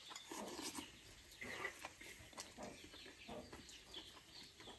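Chickens clucking faintly, a series of short calls with some higher chirps among them.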